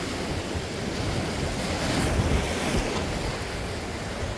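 Sea surf washing and breaking against a rocky shore, a steady rush of water, with wind buffeting the microphone as a low rumble.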